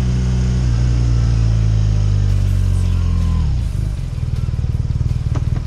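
BMW R nineT's air/oil-cooled boxer twin running steadily under cruise. About three and a half seconds in, the revs drop as the throttle closes, and the engine falls to an uneven low pulsing rumble on the overrun. Wind rushes over the microphone throughout.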